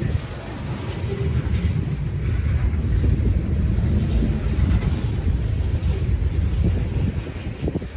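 Low, steady rumble of a passing train, with wind buffeting the microphone.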